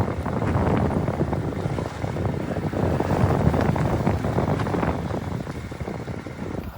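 Small Hero motorcycle running while being ridden, mixed with heavy wind noise on the microphone and frequent short knocks and rattles.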